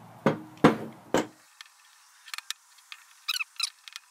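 Metal tools and a clamp knocking and clinking against a large steel ball bearing on the bench: three sharp knocks in the first second and a half, then fainter metal clinks.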